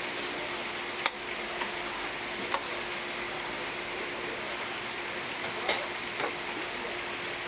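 Tteokgalbi patties sizzling steadily on a greasy flat-top griddle, with a few sharp clicks of a metal spatula against the griddle plate, and a faint steady hum underneath.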